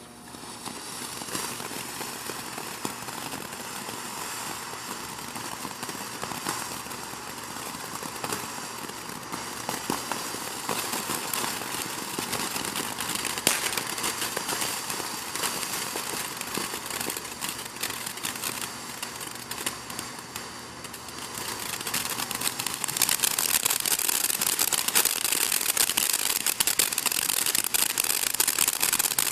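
Ground firework fountain spraying: a steady hiss thick with fine crackling that starts up at the outset and grows louder and brighter about three quarters of the way through.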